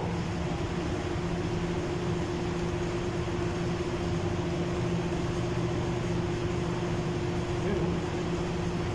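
Steady mechanical hum with a constant low tone, with no distinct tool knocks or scrapes standing out.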